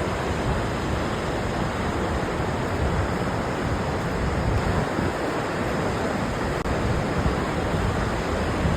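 Gullfoss waterfall rushing in a steady, even wash of noise, with wind gusting over the microphone underneath.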